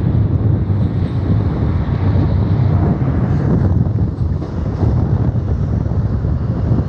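Passenger train running fast through a curve, a steady rumble of coach wheels on the rails, with wind buffeting the microphone.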